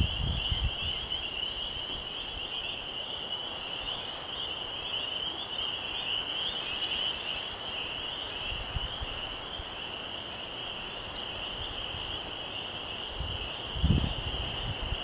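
A steady high-pitched animal chorus runs throughout. Over it come a few soft hissing puffs of breath blown into a bundle of dry grass tinder to bring a hand-drill ember to flame, and low rumbles of wind on the microphone near the end.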